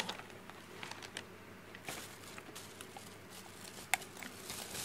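Hand rummaging through a container of grooming tools in search of nail clippers: scattered small clicks and rustles of objects being moved, with one sharp click about four seconds in.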